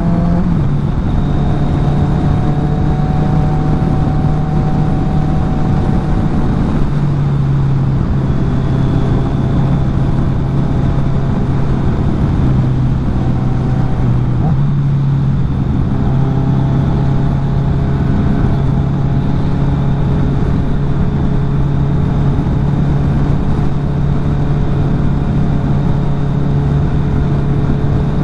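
Kawasaki Z900's inline-four engine under way at a steady cruise, a constant drone that shifts slightly in pitch a few times, over a steady rush of wind noise.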